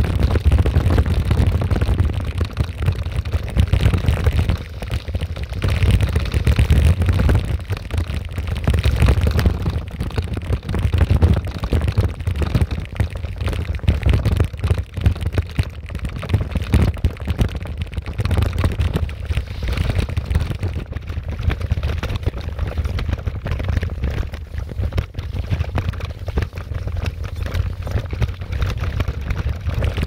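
Wind buffeting the microphone of a camera on a moving bicycle: a loud low rumble that swells and dips in gusts.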